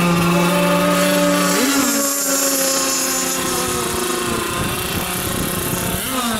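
Gas-powered model boat engines running, several at once at different pitches. One rises in pitch a little under two seconds in, and another drops in pitch near the end.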